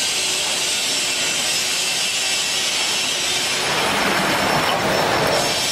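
LZ-1500L open dual-shaft mixer running: the anchor agitator and high-speed disperser churning liquid in its stainless steel vessel, a steady loud rushing machine noise. About four seconds in the churning swells fuller and louder for a second or two, then settles back.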